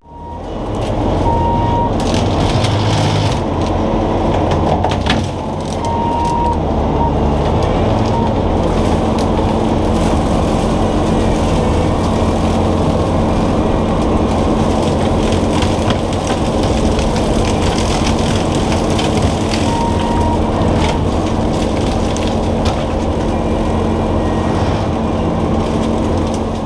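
Bobcat T650 compact track loader running steadily with its Blue Diamond severe-duty rotary cutter spinning, cutting brush with frequent cracks and snaps of wood.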